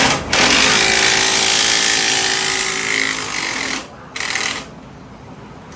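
Impact wrench running on a suspension bolt in one long burst of about three and a half seconds, then a short second burst.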